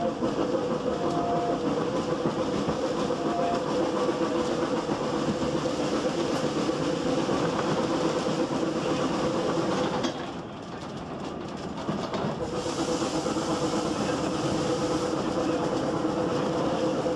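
GWR steam railmotor No. 93, a self-propelled steam carriage, running along the track: the steady rolling of the carriage with wheels clicking over the rail joints. The sound drops away briefly about ten seconds in, then picks up again.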